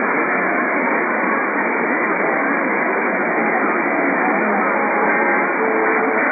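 Night-time AM radio reception: a steady wash of static and hiss, narrow and muffled by the AM bandwidth, with faint music showing through, a little clearer near the end.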